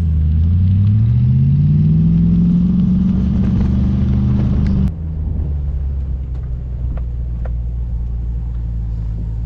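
2006 Ford Mustang GT's V8 accelerating hard, its pitch rising steadily and then holding high. About five seconds in it cuts off suddenly to the engine running steadily at a low, even pitch.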